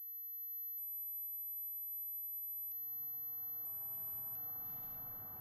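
A steady, very high-pitched pure ringing tone, an ear-ringing sound effect, with a soft haze of outdoor ambience fading in about halfway through.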